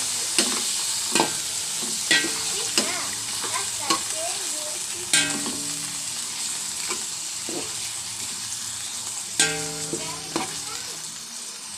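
Chicken liver, garlic and onion sizzling in hot oil in a metal pot, a steady hiss that slowly quietens, while a metal ladle stirs and knocks against the pot about eight times; the hardest knocks, about five seconds in and near the end, ring briefly.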